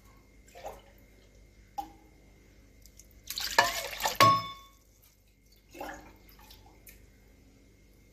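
Water poured from a steel cup onto soaked rice and moong dal in a pressure cooker, in a few separate splashing pours, the loudest a little past halfway. That pour ends with a short ringing clink of metal on metal.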